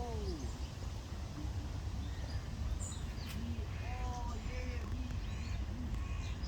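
Ducks calling in short arching calls, one ending about half a second in and several more between about one and a half and five seconds in, with small birds chirping faintly. A steady low rumble of wind or outdoor noise runs underneath.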